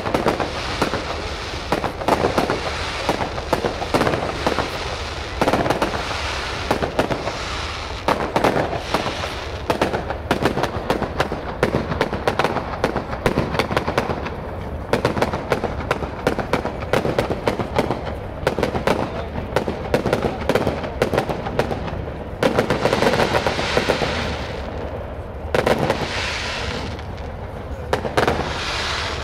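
Fireworks display: a rapid, unbroken run of sharp bangs and crackles from bursting shells.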